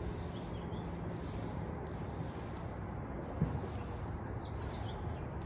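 A horse breathing, with soft hissing exhalations about once a second.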